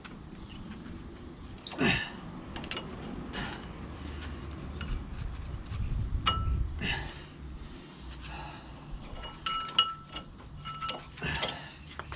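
Scattered metallic clicks, knocks and clinks as the old front brake pads are worked out of the caliper carrier of a 2016 Ford Fiesta and handled with tools, with a few short ringing pings near the end.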